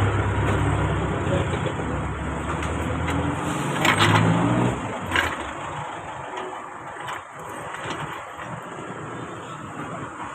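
A motor vehicle engine running, rising briefly in pitch, then fading away about five seconds in. Two sharp clicks sound near the middle.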